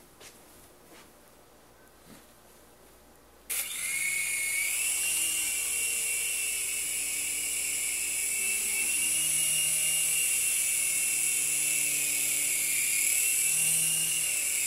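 A few faint clicks, then about three and a half seconds in the small electric motors of a JXD 340 toy coaxial helicopter, fitted with 3D-printed rotor blades, start up suddenly. A steady high-pitched whine follows as it lifts off and flies.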